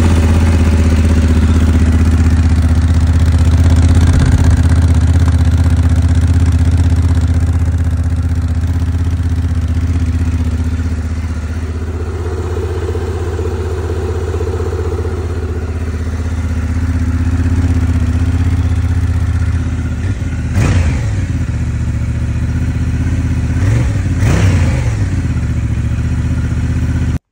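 Honda Transalp XL750's 755 cc parallel-twin engine idling steadily through its stock exhaust with the spark arrestor still fitted, just after a cold start. Near the end the throttle is blipped twice, a short rev each time.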